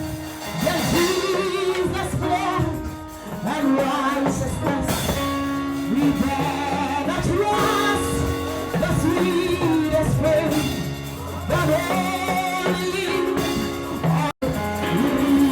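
Music with a singing voice over held instrumental accompaniment. The sound cuts out for an instant near the end, then carries on.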